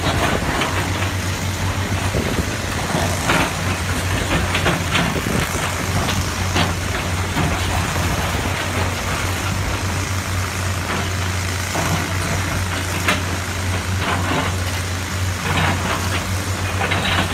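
Komatsu PC450 hydraulic excavator's diesel engine running with a steady low drone while the bucket digs into blasted rock, with repeated clattering and scraping of stones throughout.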